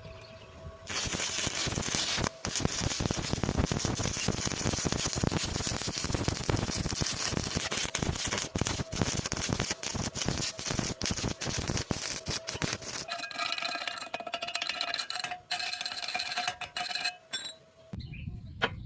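Electric arc welding crackling, with dense irregular sputtering that starts about a second in and runs with brief breaks, thinning out after about 13 seconds and stopping near the end.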